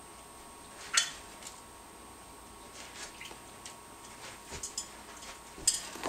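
African grey parrot bathing in its water dish, making small splashes and taps. One sharp, brief sound about a second in, then scattered faint clicks toward the end.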